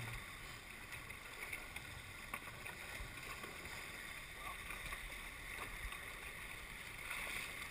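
Water rushing and splashing along the hulls of a Tornado catamaran under sail: a steady hiss with a few faint ticks.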